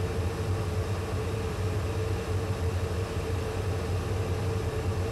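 Steady flight-deck noise of a McDonnell Douglas MD-11 in cruise: an even rush of air with a low hum and a faint, steady mid-pitched tone.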